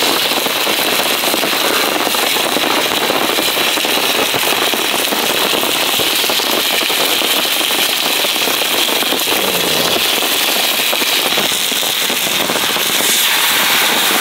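Steady, dense pattering of heavy rain on a tarp, mixed with meat sizzling in a frying pan over a crackling wood fire. Near the end the sizzle swells as beer is poured into the hot pan.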